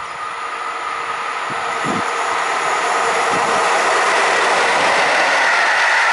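EU07 electric locomotive hauling a passenger train, approaching and passing close by: wheel-and-rail noise swells for about four seconds, then holds steady as the coaches roll past. A few low knocks come in the first couple of seconds.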